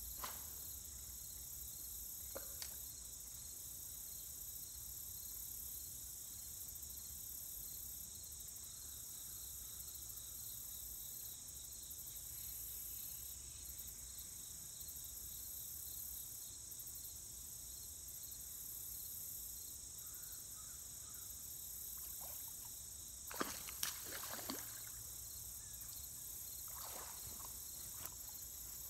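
Steady, faint high-pitched chirring of insects in the open air, with a few short sharp sounds near the end.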